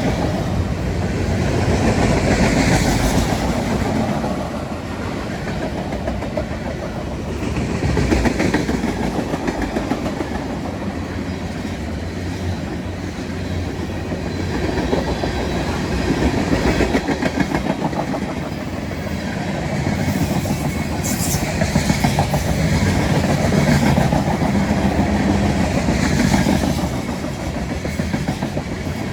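CSX freight train's cars rolling past, wheels clattering over the rail joints in a steady rumble that swells and fades every few seconds.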